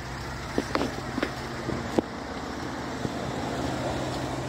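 A pickup truck's engine idling steadily, with a few short light clicks and taps over it.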